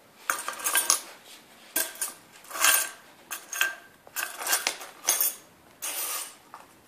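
A bunch of metal house keys jangling and clinking on paving tiles as a Labrador puppy chews and paws at them, in short bursts about once a second.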